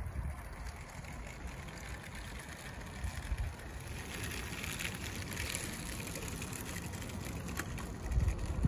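Wind buffeting an outdoor microphone: low rumbling gusts near the start, about three seconds in and near the end, over a steady hiss.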